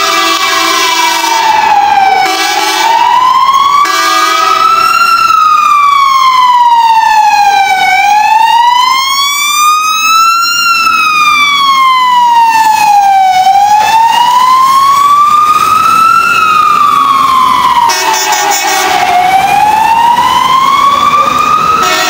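Fire engine siren sounding a slow wail, rising and falling about every five and a half seconds, as the truck drives by on an emergency run. Steady lower tones sound under it at the start and again briefly about eighteen seconds in.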